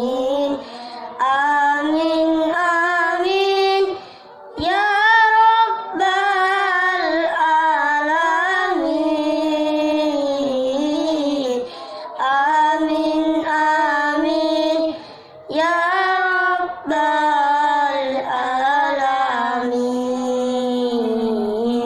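A child singing an Islamic prayer song solo, in phrases of a few seconds with short pauses for breath, the pitch wavering and ornamented through each line.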